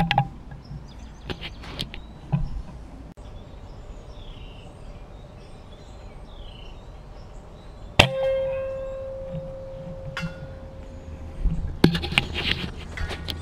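A single shot from a .22 Benjamin Fortitude PCP air rifle about eight seconds in: a sharp crack followed by a ringing tone that fades over about two seconds. Clusters of clicks and knocks come at the start and near the end.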